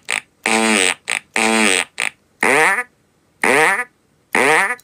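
Fart sound effects from a modified butt-shaped toy fitted with push buttons and toggle switches, cabled out to audio gear. About five short pitched blasts, each about half a second and dropping in pitch, with short silences between them.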